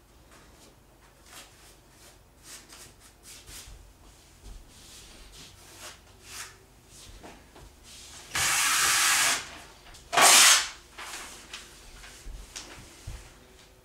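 Masking paper being pulled from the roll on a floor-standing dispenser and torn off: two loud ripping sounds, the first about a second long and the second shorter, with light rustles and knocks of handling around them.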